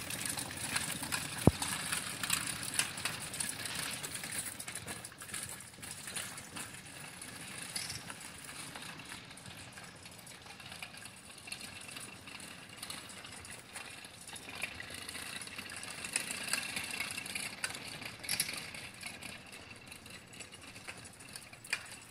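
Homemade bike on big sand paddle tires rolling over pavement, its frame rattling and clicking, with one sharp click about a second and a half in.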